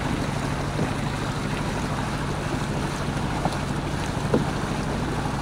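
A Westerly Centaur yacht's inboard engine running at a steady speed as the boat motors along with its sails still furled, a low even drone. Wind on the microphone and water noise run under it, with a couple of faint small knocks.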